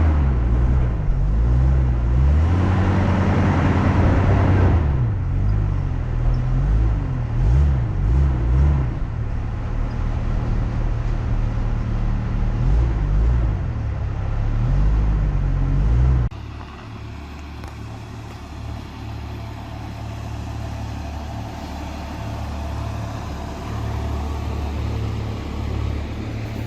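Vehicle engine running and revving up and down as it climbs a rough dirt trail, with a rush of noise in the first few seconds. About two-thirds of the way through it cuts suddenly to a quieter, steady engine hum.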